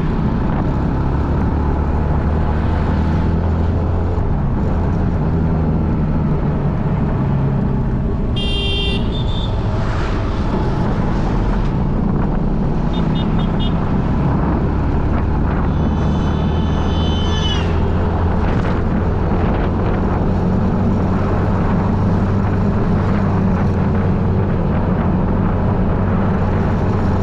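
Steady road-traffic and engine noise with a short vehicle horn honk about eight and a half seconds in. A longer horn tone sounds around sixteen to seventeen seconds and drops in pitch as it ends.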